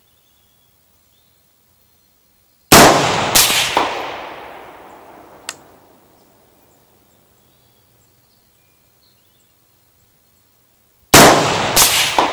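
AR-15-style rifle shots, two firing sequences about eight seconds apart. Each is a sharp crack followed under a second later by a second strong crack, then a long rolling decay.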